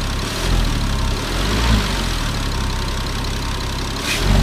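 Porsche Cayman 987 flat-six engine idling, with a steady air-blowing hiss over the engine note and a brief sharp sound near the end. The owner takes the hiss for abnormal.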